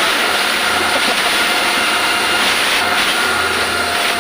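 Concrete pump truck running steadily, a loud even engine-and-machinery noise with a high steady whine over it.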